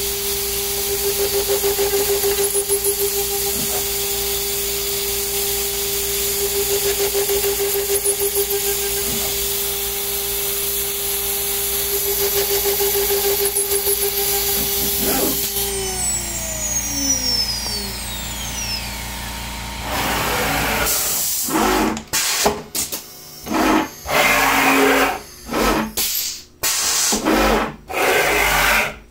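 CNC router spindle whining steadily at high speed as a 1/8-inch drill pecks holes in an aluminium plate, under a steady hiss of compressed-air blast. About 15 seconds in the spindle spins down with a falling whine, and near the end short bursts of air hiss start and stop in quick succession as the automatic tool changer swaps the tool.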